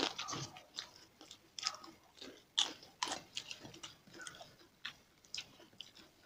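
Close-miked eating: chewing with irregular sharp crunches of crisp fried food such as papad.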